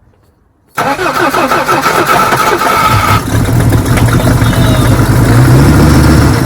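Mercedes OM617 five-cylinder diesel cranking on the starter for about two and a half seconds, then catching and running, picking up under throttle near the end before the throttle is released. This is the first start on its rebuilt lift pump and new primer pump, after months of fuel starvation from a broken primer plunger.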